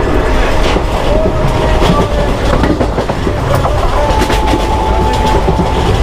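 Passenger train running at speed, heard from an open coach doorway: a steady rumble of wheels on rail with clicks over the rail joints, and a thin steady tone that steps higher about four seconds in.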